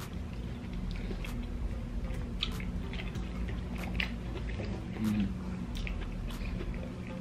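Close-miked chewing: wet mouth clicks and smacks at an irregular pace as two people chew soft food, White Castle sliders and stir-fry, over a steady low room hum. A short hummed sound comes about five seconds in.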